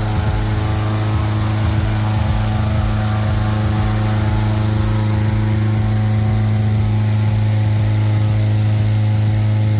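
Small gasoline engine driving a hot-air balloon inflator fan, running steadily with an even hum as it blows cold air into the balloon envelope during cold inflation.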